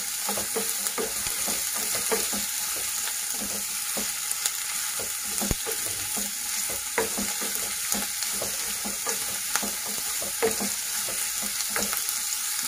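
Chopped onions sizzling steadily in hot oil in a kadai on a medium flame. A spatula stirs them with irregular scrapes and taps against the pan.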